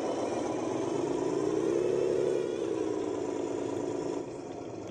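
Handmade radio-controlled model trucks' motors and gears whirring as they race, the pitch rising about two seconds in and then falling back as they speed up and slow down; the sound drops a little near the end.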